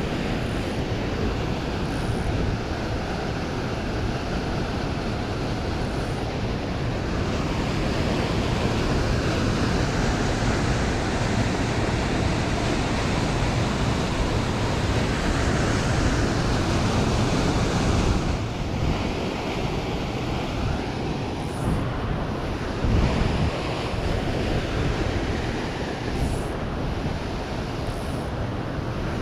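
Waterfall and creek water rushing steadily, a dense continuous roar with a brief low bump about two-thirds of the way through.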